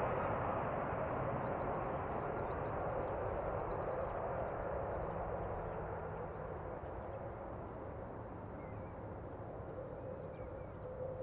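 Jet noise of an Airbus A320-214's CFM56 turbofans, a broad rushing sound slowly fading as the airliner moves away on its landing approach. A few bird chirps in the first few seconds.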